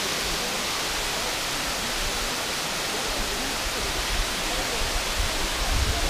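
Waterfall, many thin streams spilling over a mossy rock face into a pool, making a steady rush of water. A few low rumbles come near the end.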